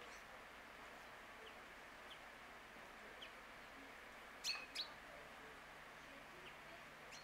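Small birds chirping: a few faint, short chirps scattered through, and two louder, sharp chirps close together about four and a half seconds in, over a faint steady hiss.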